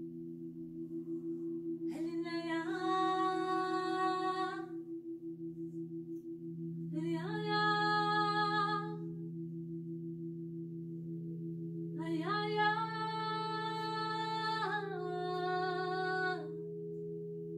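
Crystal singing bowls ringing in a steady low drone with a slow wobble, while a woman sings long held wordless notes over them. There are three phrases, each sliding up into its note. The last steps down to a lower note about two-thirds of the way in.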